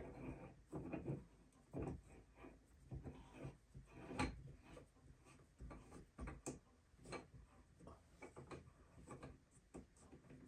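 Faint, irregular clicks, taps and rubbing of hands working a plumbing fitting high in a shower stall as it is tightened by hand, with one sharper knock about four seconds in.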